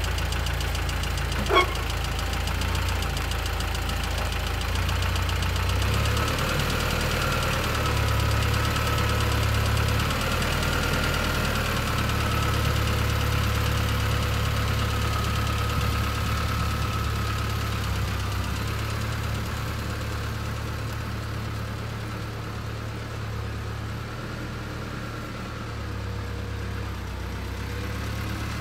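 Tractor engine running steadily, with a faint high whine partway through, then fading as the tractor pulls away. A single sharp click about one and a half seconds in.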